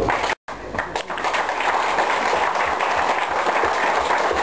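Audience applauding: dense, steady clapping from a large crowd at the end of a speech.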